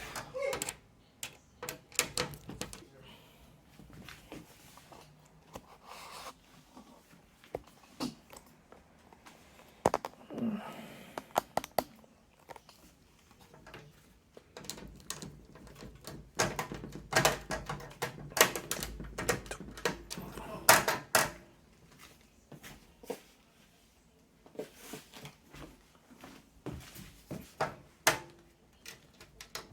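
Irregular small clicks and knocks of a screwdriver, screws and a plastic case fan against a computer case while a fan is being screwed in by hand, with a busier run of clicking a little past halfway.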